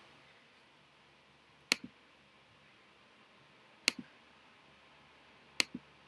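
Three sharp clicks about two seconds apart, each followed a moment later by a softer second click, like a button pressed and released on a laptop, against quiet room tone.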